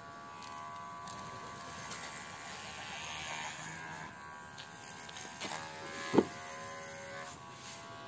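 Baorun P2 pet hair clipper running with a steady buzz as it cuts through a Yorkshire terrier's thick coat, its tone shifting slightly with the load. A brief sharp sound stands out about six seconds in.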